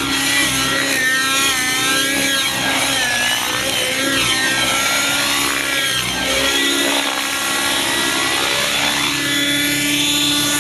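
Radio-controlled model helicopter in aerobatic flight: a continuous high whine of its engine and rotors, the pitch sweeping up and down again and again as it manoeuvres.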